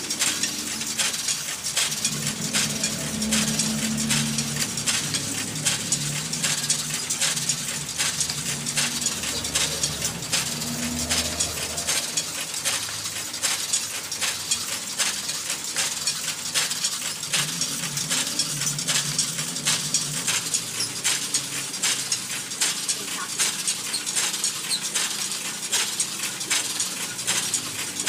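Homemade motor-driven mulch-film hole-punching machine running: a rapid, even metallic clicking and clatter from its chain, sprockets and punch mechanism, with the plastic film rustling as it feeds through.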